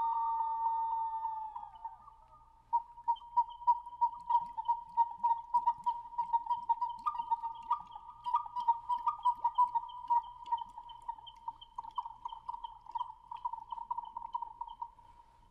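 Pre-Hispanic whistles: two close-pitched whistle tones sliding slightly down and fading, then a single bird-like whistle tone at about the same pitch, warbling in fast pulses for over ten seconds before dying away near the end.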